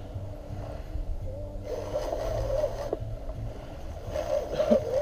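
Fishing reel being cranked under the load of a large shark, a wavering whine that rises and falls with each turn, over a low steady rumble.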